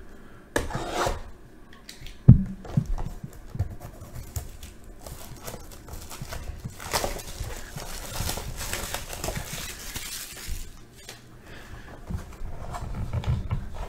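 Hands handling a cardboard trading-card box and its plastic wrapping: a few light knocks and taps in the first few seconds, then several seconds of plastic crinkling and rustling.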